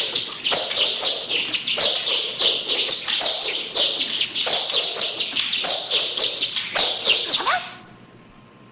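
Nunchaku whirling through the air: a quick run of high whistling swishes, two or three a second, that stops suddenly near the end.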